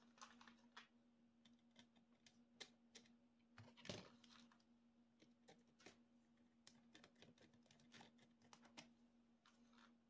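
Faint small clicks and light clatter of tiny screws and acrylic parts being picked out of a parts tray and handled, the loudest clatter about four seconds in, over a faint steady hum.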